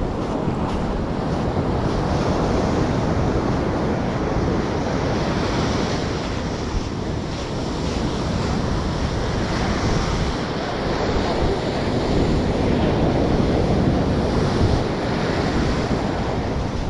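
Ocean surf breaking and washing up the beach, mixed with wind buffeting the microphone: a steady rushing noise.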